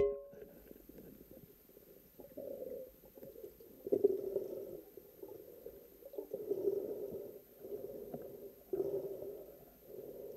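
Underwater spearfishing sounds heard through a camera's waterproof housing. A sharp crack at the very start as the speargun fires at a perch. Then muffled, gurgling rushes of water noise come and go every second or two as the diver moves in the water.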